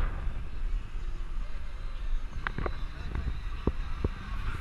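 Open-top Jeep driving, with a steady low rumble of engine, road and wind on the microphone. Several sharp clicks and knocks come in the second half.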